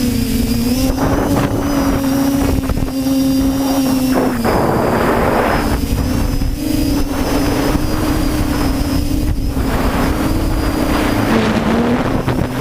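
TBS Discovery quadcopter's brushless motors and propellers whining in flight, the pitch shifting a little with throttle, with wind gusting over the onboard microphone.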